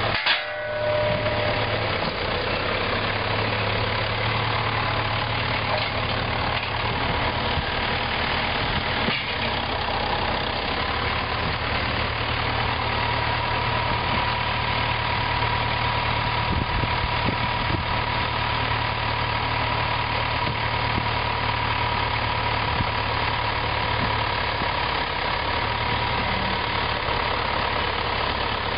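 John Deere farm tractor diesel engines running steadily, with a steady whine joining in about twelve seconds in.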